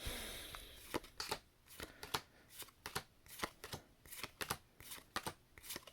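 Pokémon trading cards being flicked through one by one: a brief rustle at the start, then a run of sharp card snaps and slides, about two or three a second, as each card is moved to the back of the stack.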